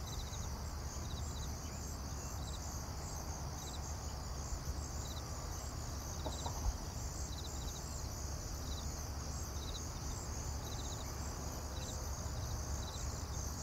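Background insect chorus: a cricket chirping in short groups of rapid pulses about once or twice a second over a steady high insect hum, with a low rumble beneath and one faint click about halfway through.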